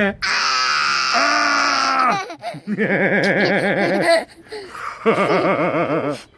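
A person's voice making bird-like noises in imitation of a bird: one long, high held call, then two shorter warbling calls whose pitch wavers quickly up and down.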